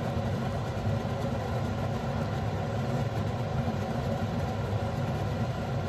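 A steady, unchanging low hum from a running fan or motor, with an even background noise and no sudden sounds.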